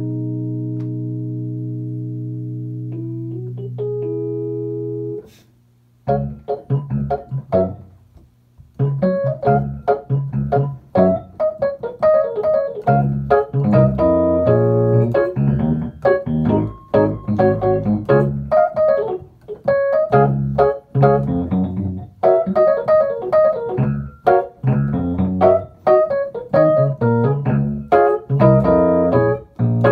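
Fender Rhodes electric piano being played. A held chord rings and shifts for about five seconds and then stops, and after a short pause a busy run of struck chords and melody notes follows.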